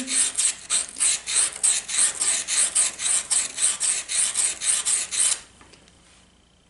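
Carbide router bit stroked back and forth on a wet fine diamond sharpening stone (about 1200 grit), a quick even scraping at about three strokes a second that stops abruptly about five seconds in. This is the fine-grit honing of the bit's flat flute face to sharpen its cutting edge.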